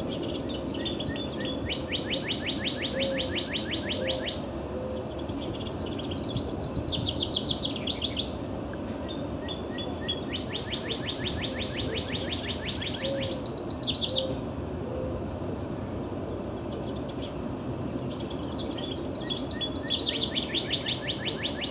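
A house wren and a northern cardinal singing in turn. Three loud phrases of jumbled, bubbly high notes alternate with rapid, even trills, each phrase a couple of seconds long.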